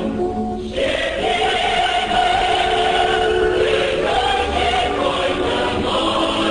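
A choir of mixed voices singing in long held notes, with a brief break just under a second in and a change of note around four seconds.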